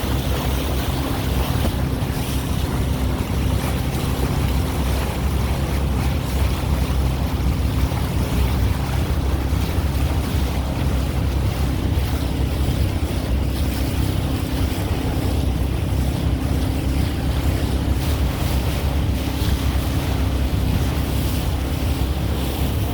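Steady wind rumble buffeting the microphone, with a faint steady hum underneath.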